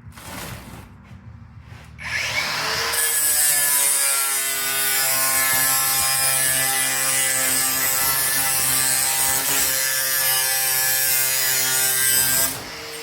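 Arccaptain 20V cordless brushless angle grinder spinning up about two seconds in with a rising whine, then cutting through a piece with a steady hiss over the motor's whine for about ten seconds, stopping abruptly near the end.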